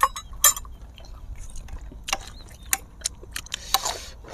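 Close-miked eating sounds: scattered sharp clicks of a spoon against a metal tray and wet mouth smacks while chewing.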